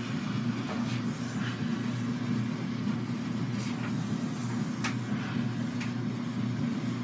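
Handheld garment steamer running with a steady low electric buzz as it is pressed and moved over fabric, with a few faint clicks.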